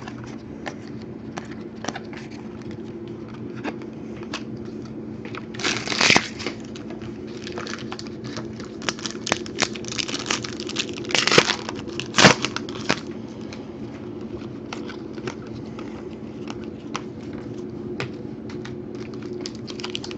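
Trading cards being handled and flipped through: a run of light clicks and flicks, with louder rustling and crinkling swishes about six seconds in and again around ten to thirteen seconds, over a steady low hum.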